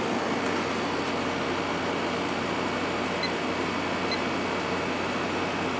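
Hotpoint 8400 BTU window air conditioner running steadily with its fan on the low setting and compressor on: an even rush of air over a low hum.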